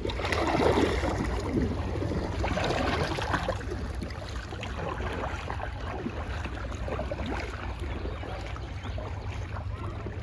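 Water splashing and swishing as a sit-on-top kayak is paddled forward, with wind rumbling on the microphone.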